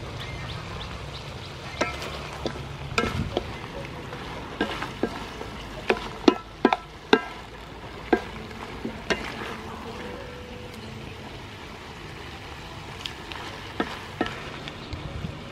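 Wooden spatula stirring a stir-fry of pork ribs and vegetables in a metal wok, with irregular clacks and scrapes against the pan over a soft, steady sizzle. The knocks come thickest in the first half.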